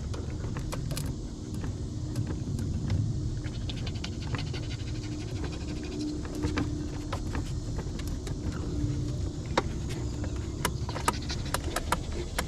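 Scattered clicks and rattles of hands working an electric trolling motor's battery connections and controls as it fails to start, over a steady low rumble, with a dog panting.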